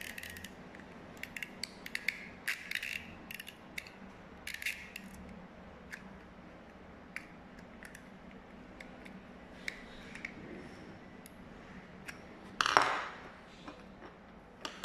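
Plastic reel hub of a VHS cassette being turned with a screwdriver to wind the tape back in, giving scattered small clicks and ratcheting. A louder rustling clatter near the end.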